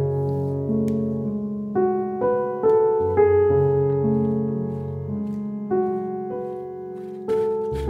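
Background piano music: soft sustained chords changing every second or so, with a few brief clicks near the end.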